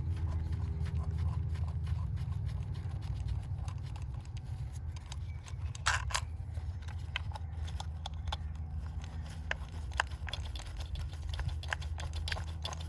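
Small clicks, knocks and scrapes of plastic and metal as an ignition coil pack is worked out of its cylinder-head well, the sharpest click about six seconds in, over a steady low hum.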